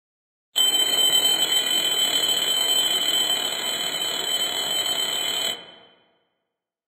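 Twin-bell alarm clock ringing: a continuous high ring that starts suddenly about half a second in, then cuts off about five seconds later and dies away quickly.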